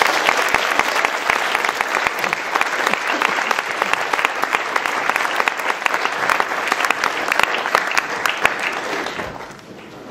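Audience applauding: a dense patter of many hands clapping that dies away about nine seconds in.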